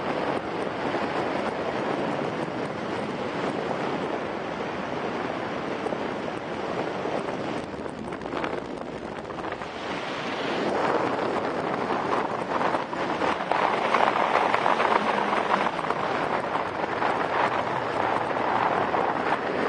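Wind noise from the airflow rushing over the microphone of a paraglider in flight, a steady rushing hiss that gets louder about halfway through.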